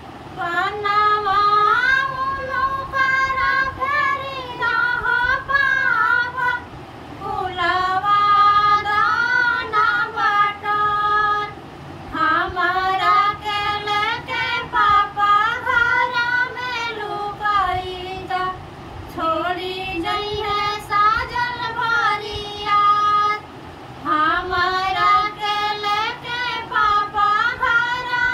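Women singing a vivah geet, a North Indian wedding folk song, in long sung phrases with short breaks between them.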